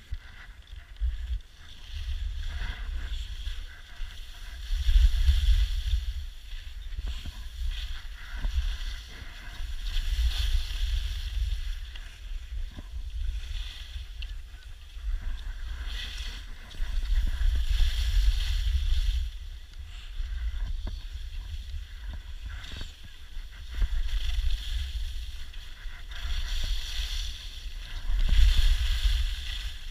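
Wind buffeting the action camera's microphone during a fast ski descent, a deep rumble that swells and fades every few seconds, with the hiss and scrape of skis carving over packed snow.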